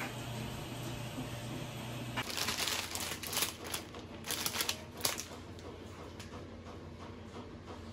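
Plastic spaghetti package crinkling and rustling in the hand in a run of sharp crackles for about three seconds, starting a couple of seconds in after a steady low hum.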